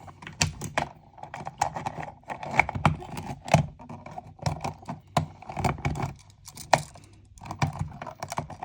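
Wires and a wall receptacle being folded and pushed back into an electrical box: irregular small clicks, rattles and scrapes, with a few sharper knocks.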